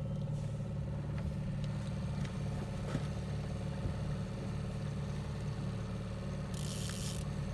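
Outboard motor running steadily at low trolling speed, a low even drone. A faint click comes about three seconds in, and a short hiss near the end.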